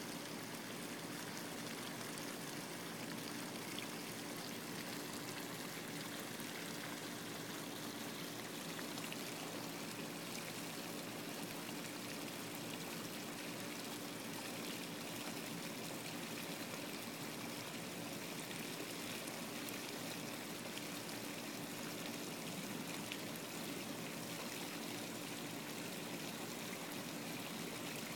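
Steady running-water sound, an even hiss without breaks, with a faint low hum underneath.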